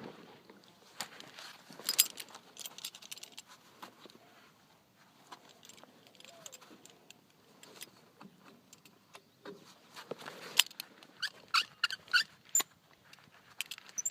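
Scattered metallic clinks and rattles of hand tools and small metal parts being handled, with a quick run of ringing clinks near the end.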